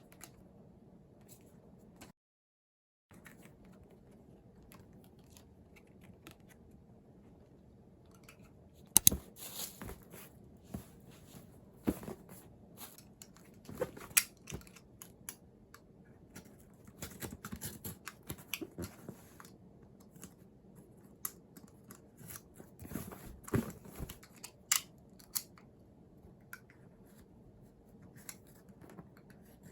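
Hands opening and handling CD packaging: plastic crinkling, tearing and sharp clicks in irregular bursts, starting about a third of the way in.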